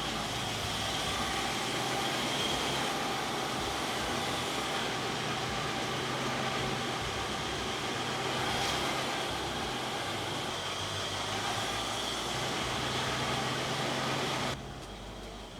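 Range Rover Classic's engine idling steadily, with an even running noise and a low hum; the sound drops off abruptly near the end.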